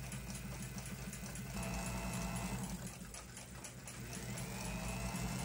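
Small watchmaker's lathe running steadily with a low hum and fast, even ticking while a wooden polishing stick charged with compound is pressed against the spinning clock pivot, a light polish of its worn bearing surface. Faint thin high tones from the rubbing come and go.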